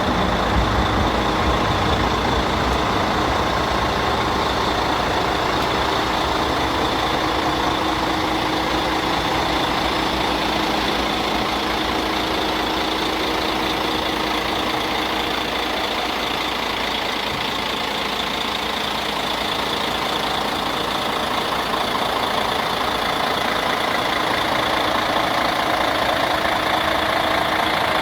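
Diesel engine of a Mercedes-Benz Axor concrete pump truck idling steadily, a little heavier in the low rumble for the first couple of seconds.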